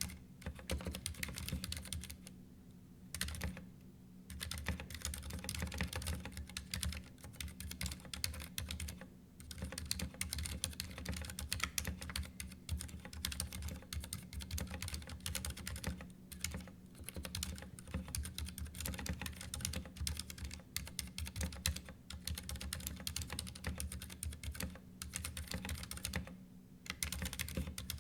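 Continuous typing on a Ducky One 2 Mini mechanical keyboard: a dense run of key clacks, with short pauses about three seconds in and again near the end.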